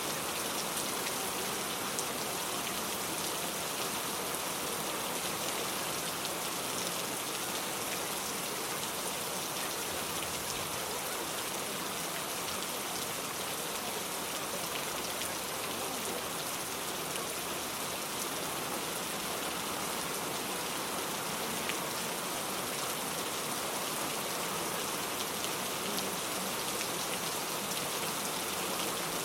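Steady rain: a continuous, even hiss with faint scattered drop ticks through it.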